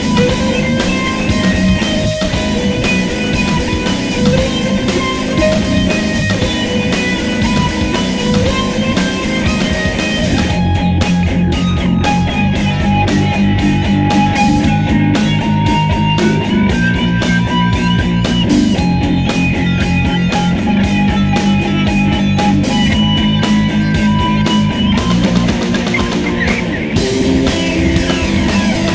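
Metal band demo song: electric guitars and a drum kit playing a riff with a sustained lead melody. About ten seconds in it shifts to a choppy stop-start rhythm.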